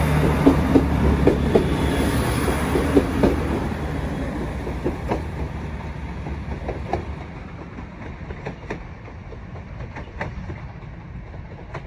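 Class 165 diesel multiple unit moving away along the track: a low diesel engine hum and a quick run of wheel clicks over the rail joints in the first few seconds, fading steadily to a few faint, scattered clicks as the train draws off.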